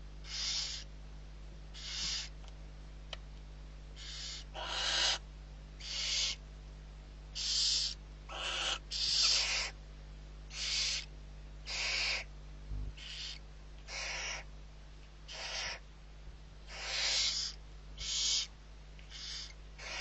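Barn owls hissing in the nest: short rasping hisses, each under a second long, repeated irregularly about once a second while the adult feeds the chicks. A steady low electrical hum runs beneath, with one soft thump about two-thirds of the way through.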